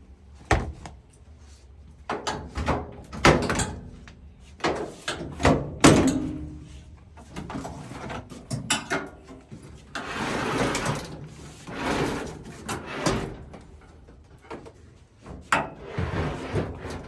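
Knocks, bumps and clunks from a clothes dryer's cabinet being handled and shifted to get at its plug and back, with a longer noisy stretch, like something sliding, about ten seconds in.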